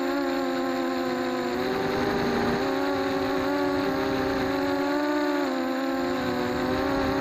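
Racing quadcopter's electric motors and propellers whining as heard from the drone's onboard camera, a steady high hum whose pitch wavers slightly up and down as the throttle changes.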